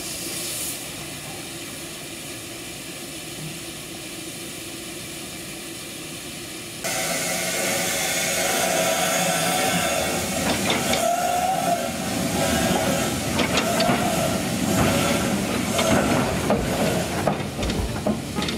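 Narrow-gauge steam tank locomotive hissing steam while it stands and turns on a turntable. About a third of the way in, the hiss jumps suddenly louder and fuller, with scattered knocks and a wavering squeal.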